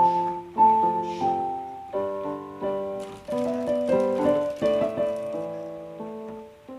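Background music led by piano: a gentle run of struck notes and chords, each fading after it is played.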